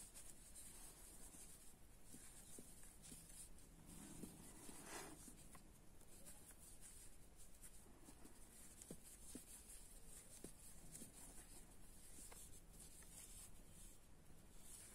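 Near silence with faint, soft rustling and scratching of yarn as a crochet hook is worked through crocheted stitches, with a few tiny ticks.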